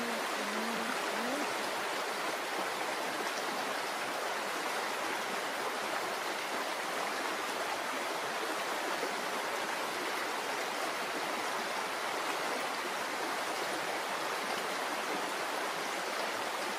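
Stream water rushing steadily, an even hiss with no breaks.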